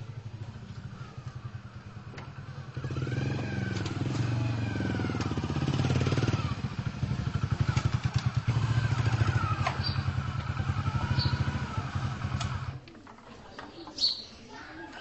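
Motorcycle engine running as the bike rides in, growing louder about three seconds in, then cutting off suddenly near the end as it stops.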